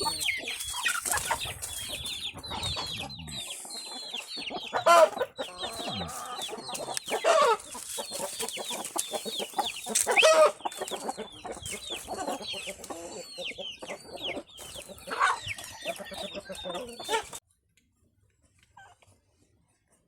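Many small animals squeaking and crying in rapid, high-pitched calls, with a few louder cries among them; the sound cuts off abruptly about 17 seconds in.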